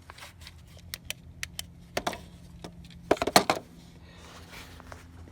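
Handling noise: scattered light clicks and knocks, with a louder clatter a little after three seconds in, over a faint steady low hum.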